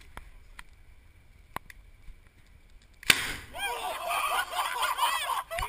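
A potato cannon fires with a single sharp bang about three seconds in. Voices then shout and whoop, their pitch rising and falling.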